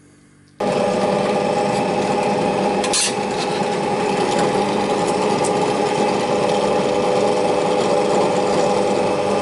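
Bench drill press running steadily, a small pilot bit drilling into stainless steel sheet. It starts suddenly about half a second in, with a brief scratchier patch about three seconds in.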